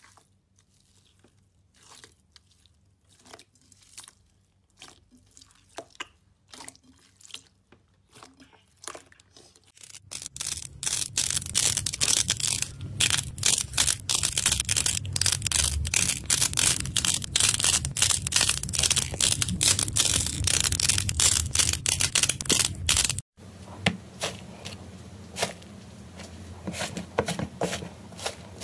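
Hands playing with slime-type toys: sparse soft clicks and squishes of fingers stirring gel water beads, then about ten seconds in a loud, dense crunchy crackling as fingers press clay-coated balls. After a sudden cut a quieter crackling follows as fingers press a crusted slime tray.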